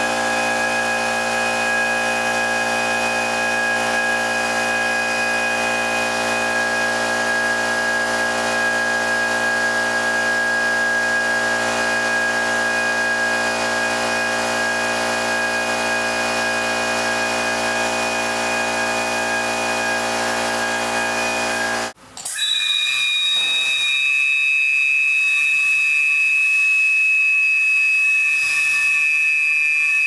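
Seagull-bone whistles blown by compressed air through rubber hoses, holding a steady, dissonant chord of several overlapping tones over a rush of air hiss. About three quarters of the way through, the sound breaks off abruptly and comes back as a thinner, higher set of held whistle tones.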